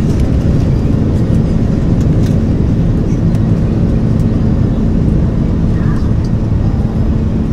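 Steady, loud rumble of an Airbus A330-300 heard inside its passenger cabin, the noise of its General Electric CF6-80E1 engines and the airframe, with a steady low hum running through it.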